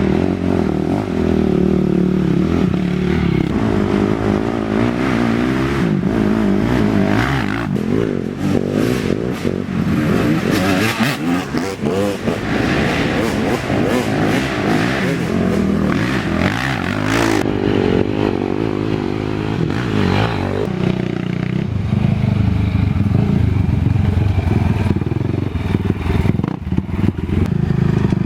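Racing ATV engines running hard, their pitch rising and falling as the throttle is opened and closed, with a run of sharp knocks and rattles from the machines around the middle.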